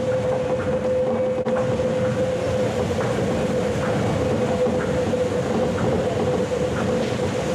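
Tokyo Monorail train running at speed, heard from inside the front car: the steady running noise of its rubber-tyred straddle-beam bogies, with a constant whine held at one pitch.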